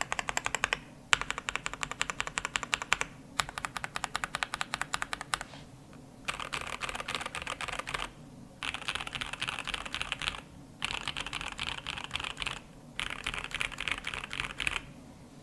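Typing on a KBD67 Lite mechanical keyboard with lubed and filmed 67g C3 Tangerine linear switches, a POM plate and PBT keycaps. The keystrokes come in quick runs of about two seconds with short pauses between them, and the typing gets faster in the second half.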